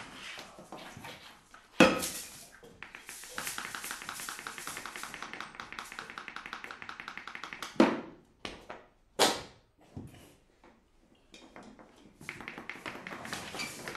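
Hand-made foley sound effects: a hard knock about two seconds in, then a fast, even run of taps for about four seconds, a few separate sharp hits, and tapping again near the end.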